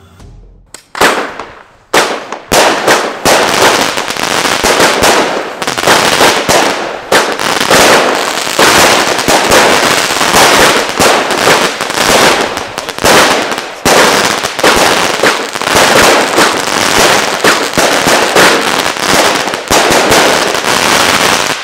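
Röder 'Billich & Willich No.3' 25-shot, 25 mm firework battery firing. Single shots come about one and two seconds in, then a rapid, continuous run of launch thumps and shell bursts. The shells burst into silver chrysanthemums and crackling palms.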